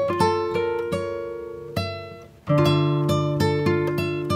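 Background music of plucked and strummed acoustic guitar, dipping briefly just past halfway before the next chord comes in.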